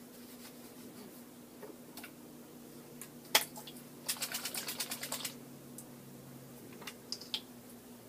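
A sharp click, then a quick run of about a dozen clicks or taps lasting about a second, and a few more scattered clicks near the end, over a steady low hum.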